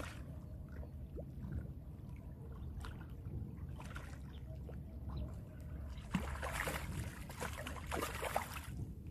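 A hooked fish thrashing and splashing at the water's surface on a long fishing-pole line, over a low steady rumble. The splashing is loudest in a burst from about six seconds in.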